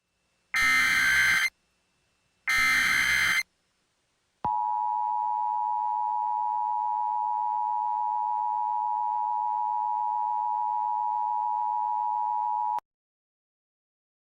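Emergency Alert System alert opening: two short bursts of buzzing digital SAME header data, then the steady two-tone EAS attention signal held for about eight seconds, cutting off suddenly near the end.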